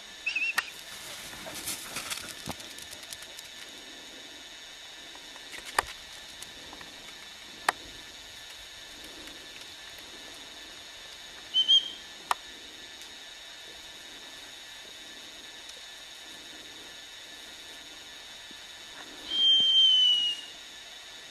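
A dog whistle blown to a working springer spaniel: two brief high pips, then near the end one long blast of about a second, its pitch sagging slightly. A few faint clicks fall in between.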